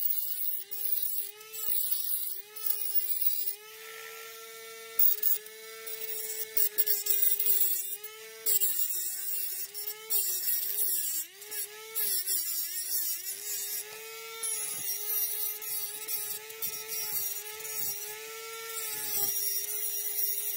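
Dremel rotary tool with a cut-off wheel running with a steady whine whose pitch wavers as the wheel bites, with repeated hissing bursts of grinding as it cuts into a small copper piece held in pliers. The footage is sped up, so the motor sounds faster than its actual low setting.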